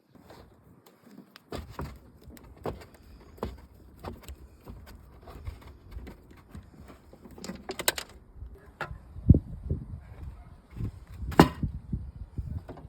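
Plastic car interior trim panels and their clips being pried and handled, giving a string of irregular clicks and knocks with two sharper knocks about nine and eleven and a half seconds in.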